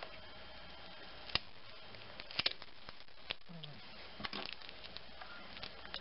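Nexus 5 battery being pried out of its bay, its adhesive tape breaking loose: scattered faint crackles and clicks, with small clusters about two and four seconds in.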